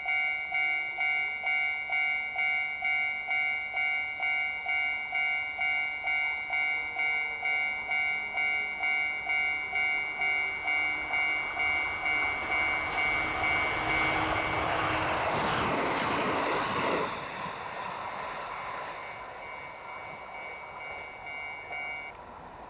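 Japanese level-crossing warning bell ringing, a pulsing electronic ding about twice a second. A train passes over the crossing a little past the middle as a loud rushing noise lasting about four seconds. The bell stops shortly before the end.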